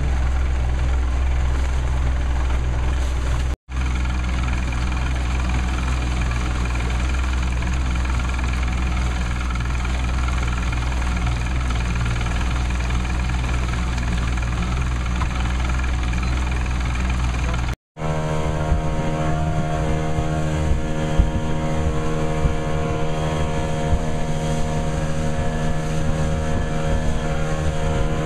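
Boat's outboard motor running steadily at cruising speed through rough water, a continuous engine drone with wind and water noise. The sound drops out for an instant twice where clips are joined, and in the last third the engine tone is stronger over a ragged, gusty rumble.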